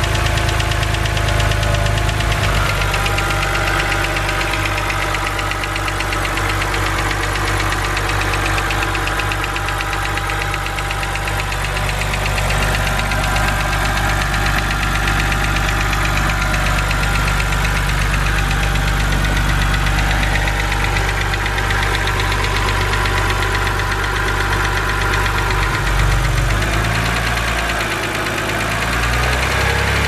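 BMW N52 3.0-litre straight-six idling, with a fast, steady ticking from the top of the engine: the well-known N52 hydraulic lifter tick, which the owner puts down to oil too thick for the lifters and calls harmless.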